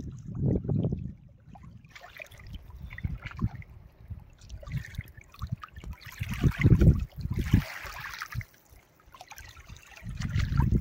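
Shallow water lapping and trickling over a shoreline heaped with freshwater mussel shells, with uneven low rumbling throughout.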